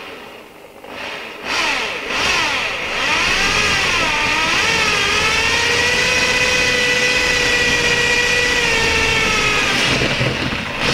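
Electric drill boring a hole through a soft model-railway baseboard. Its motor whine comes up about a second and a half in, wavers and dips in pitch under load around four to five seconds, then holds steady before dying away near the end as the bit breaks through.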